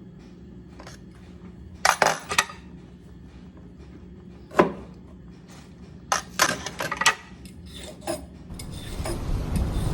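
Kitchen dishes and cutlery clinking and knocking in scattered strikes, the loudest about two seconds in and near the middle, over a low background hum. A steady hiss builds near the end.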